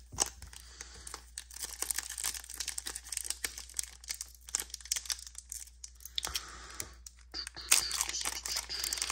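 Foil wrapper of a Pokémon card booster pack being torn open and crinkled by hand, making a run of sharp crackles that grow denser and louder near the end.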